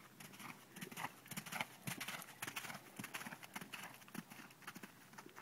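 Hoofbeats of a ridden horse moving briskly over sandy arena footing, a quick, steady run of dull strikes several a second.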